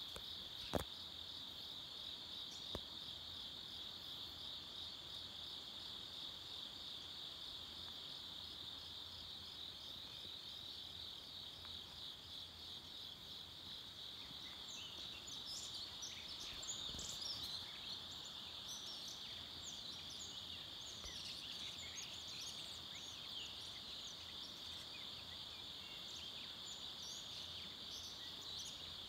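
A dawn chorus of crickets in woodland: a steady, slightly pulsing high trill. From about halfway, scattered short higher chirps join in. A single sharp click comes near the start.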